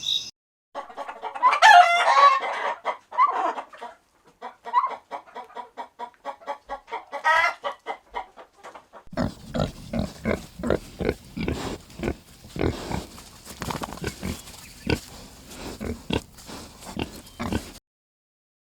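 Farm animals calling, chickens most clearly: pitched, gliding calls in the first few seconds, then a rhythmic run of clucks at about three or four a second. From about halfway a denser run of irregular, lower grunt-like calls follows, and it stops abruptly near the end.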